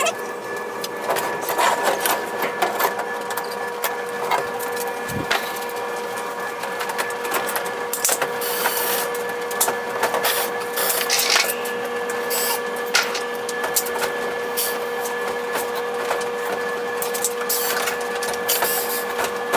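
A steady mechanical hum with a constant tone, broken by many short clicks and knocks, and one low thump about five seconds in.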